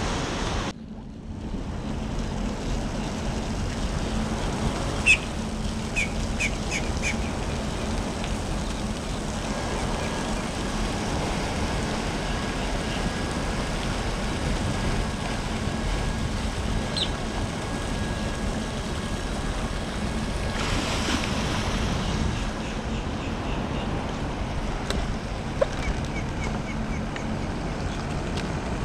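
Steady wind buffeting the microphone over the wash of the sea, with a few short bird chirps about five to seven seconds in.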